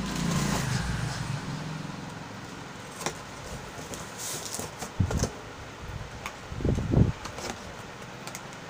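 A cardboard shipping box being opened by hand: flaps handled, with a few dull thumps on the cardboard, the loudest about five and seven seconds in, and scattered light clicks. A low vehicle engine hum fades over the first couple of seconds.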